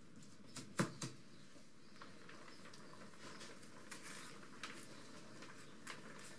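Hand work at a workbench: two sharp knocks about a second in, then quieter clicks and short scrapes as a mixing cup, brush and small plywood strips are handled while coating them with epoxy.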